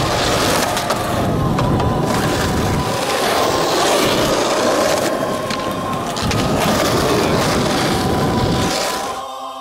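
Skateboard wheels rolling over rough asphalt: a steady gritty rumble that fades out near the end.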